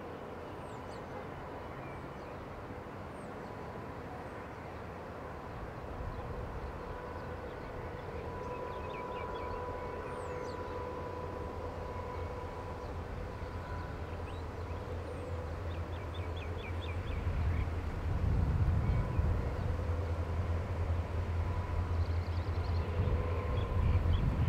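Diesel-electric locomotives of an approaching empty grain train (CLP12, S311, 602 and CLF3), their low engine rumble growing steadily louder and becoming much stronger about two-thirds of the way in. Small birds chirp over it.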